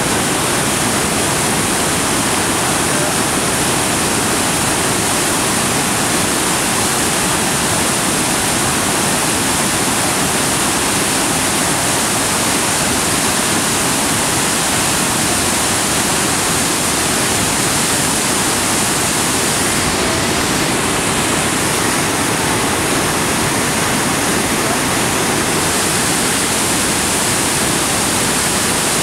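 Rideau River in high flow pouring over a waterfall and through whitewater rapids: a loud, steady rushing of water.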